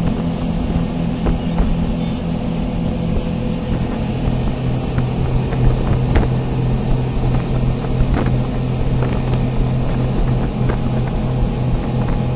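Passenger motorboat's engine running steadily under way, heard on board as a low hum with the rush of water and wind. The hum drops in pitch about four seconds in, and there are scattered light knocks.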